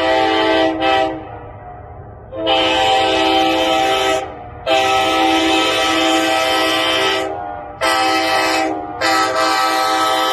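Nathan K5HA five-chime train horn, a 1990s tagless-era horn assembled from parts, sounding a chord in a string of blasts of uneven length with short breaks: one ending about a second in, then about two, three and one second long, and another starting near the end.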